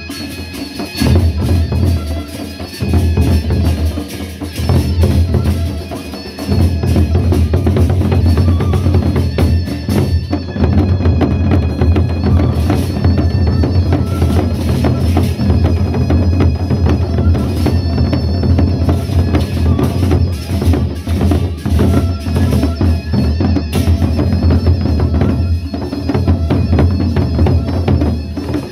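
Sasak gendang beleq ensemble playing: large double-headed barrel drums beaten with sticks in a dense, driving rhythm, with heavy low drum tones. The playing breaks off briefly a few times in the first six seconds, then runs on without a break.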